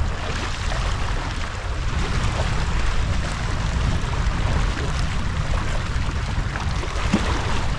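Wind buffeting the microphone: a steady low rumble with a broad rushing hiss over it.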